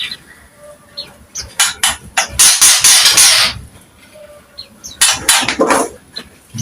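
Green leafbird (cucak ijo) singing loudly in three bursts of harsh, noisy chatter, the longest about a second, with a few short thin whistles in the gaps.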